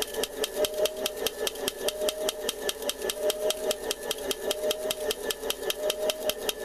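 RC excavator's electric breaker attachment hammering on a thin stone slab in a fast, even train of knocks, several blows a second. The machine's electric motors give a steady whine underneath.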